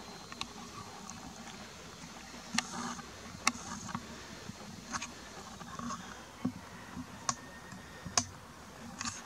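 Handling noise from a Nikon Coolpix P900 camera, picked up by its own microphone: about seven sharp clicks and taps at uneven spacing over a steady faint hiss.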